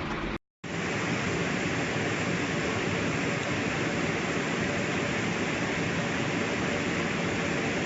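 Steady, even rushing noise, cut off to silence for a moment about half a second in.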